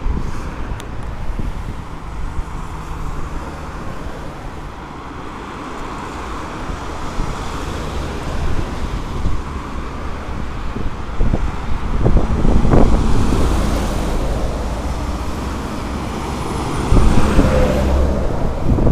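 Expressway traffic: cars passing by with a steady rush of engine and tyre noise. It swells loudest as vehicles go past about twelve seconds in and again near the end.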